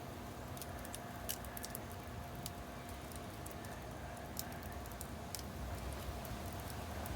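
Wood fire crackling faintly, with small sharp pops and snaps at irregular intervals over a low steady background.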